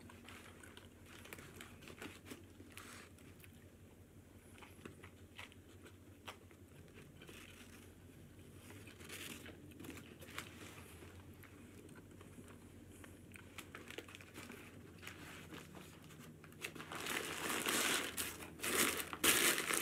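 Quiet chewing of a burger, with small scattered mouth clicks, then louder crinkling of paper food packaging for the last few seconds.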